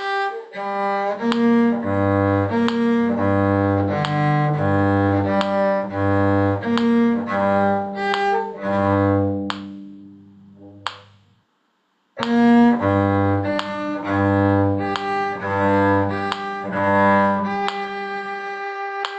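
Bowed string instruments play the last line of a brisk tune: short low cello notes repeat under a higher melody. The music fades and stops just before eleven seconds in. It starts again about a second later and ends on a long held note.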